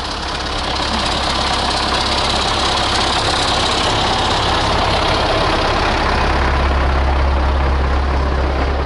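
Tractor diesel engine running steadily close by, its low rumble growing stronger about six seconds in.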